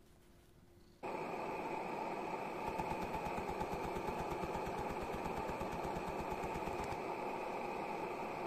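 Homemade free-piston hot air (Stirling) engine running, its rubber bellows diaphragm and piston oscillating to give a steady, fast, rhythmic buzz that starts suddenly about a second in.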